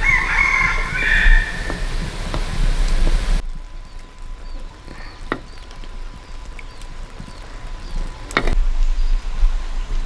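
A rooster crowing in the first second or so, then a few sharp clicks and knocks, the loudest about eight and a half seconds in.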